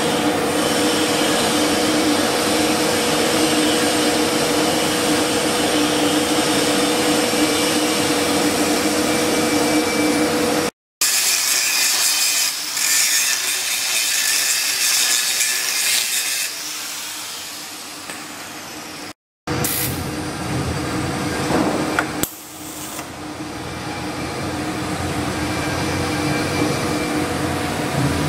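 Steady hiss and hum during TIG welding on pipe. About eleven seconds in, an angle grinder cuts into the pipe with a loud, high-pitched grinding that fades out after about five seconds. Near the twentieth second a few sharp clicks come before the steady welding hiss returns.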